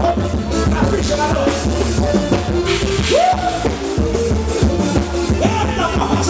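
Forró band playing live: a singer's voice over a steady drum kit beat and bass, the melody swooping up in pitch about three seconds in and again near the end.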